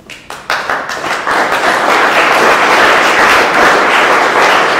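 Audience applauding: many hands clapping, starting about half a second in and quickly building to loud, steady applause.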